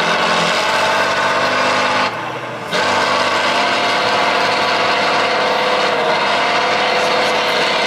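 Tatra 813 trial truck's diesel engine working hard under load as it climbs a steep dirt slope. The engine note eases off briefly about two seconds in, then comes back up and holds steady.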